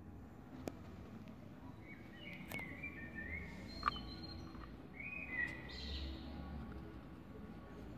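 Birds chirping faintly over low outdoor background noise, in two short runs of wavering chirps, with a few sharp clicks.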